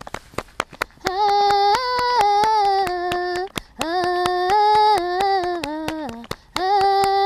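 A woman singing a Cape Verdean batuku song in long held notes over steady rhythmic hand clapping. The voice comes in about a second in and breaks off briefly twice.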